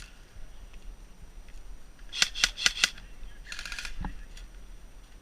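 Airsoft rifle shots: four sharp cracks in quick succession about two seconds in, followed by a quieter, faster burst of fire and a single knock.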